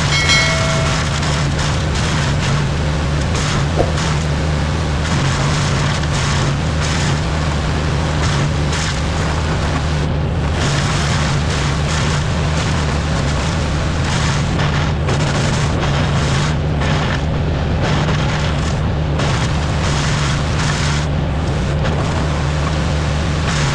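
A large engine running steadily at a constant speed, with a brief short tone about half a second in.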